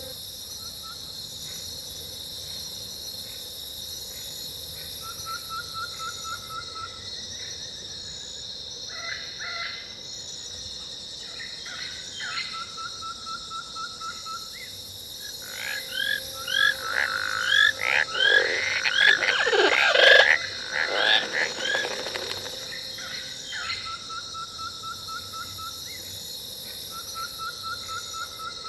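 Jungle ambience sound-effects track of insects and strange animal calls: a steady high insect drone under short trilled calls that repeat every few seconds. About halfway through, a louder cluster of yelping and falling animal cries rises for several seconds, then dies back.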